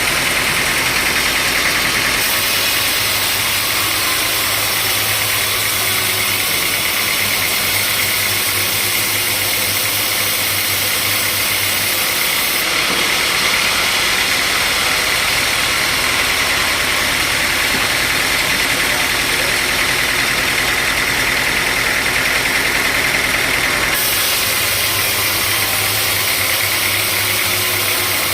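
Sawmill machinery running steadily: a constant motor hum under a loud saw hiss, which shifts abruptly a few times.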